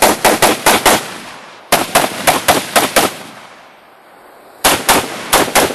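Rapid strings of gunshots, each shot with a short echoing tail. There are about half a dozen quick shots at the start, another string of about seven about two seconds in, and a third string near the end.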